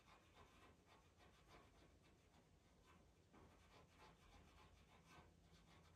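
Faint scratching of a pastel pencil on Pastelmat paper, in short, irregular strokes several times a second.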